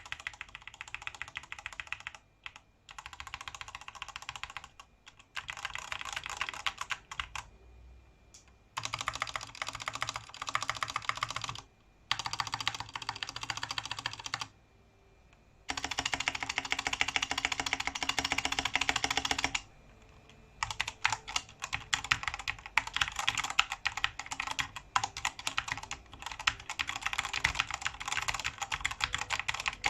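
Mechanical keyboard with lubed Gateron Brown tactile switches being typed on, rapid keystrokes in runs of a few seconds with short pauses between them.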